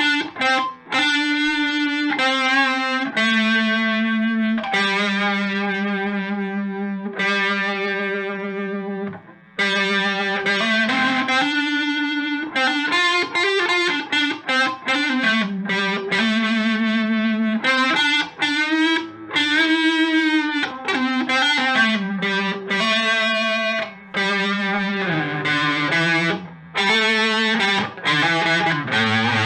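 Electric guitar played through a Moen Jimi Nova univibe-style pedal with some overdrive: a run of single notes and string bends, the held notes wavering with the pedal's pulsing modulation.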